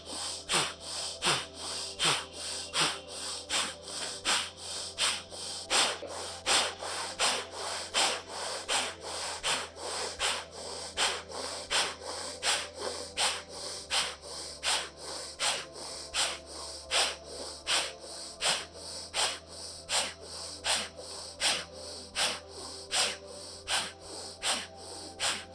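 Bhastrika pranayama (bellows breath): a woman breathing forcefully and rapidly in and out through both nostrils, in an even rhythm of about two short breath sounds a second.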